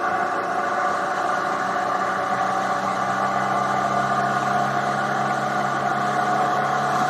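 Triumph Tiger 800 XRt motorcycle's three-cylinder engine running at a steady cruise, with road and wind noise. A lower hum joins about two and a half seconds in.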